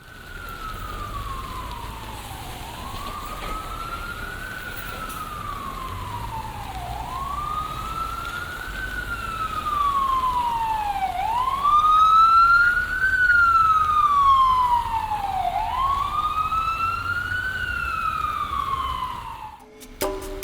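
Emergency vehicle siren wailing, its pitch slowly rising and falling about every four seconds. It grows loudest about halfway through, then cuts off just before the end, over a steady low street noise.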